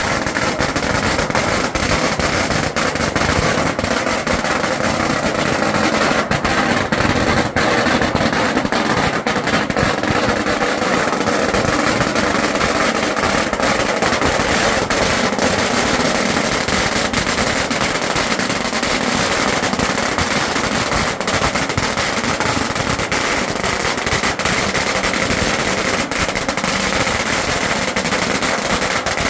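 A long string of firecrackers going off in a dense, unbroken crackle of rapid bangs at a steady loudness.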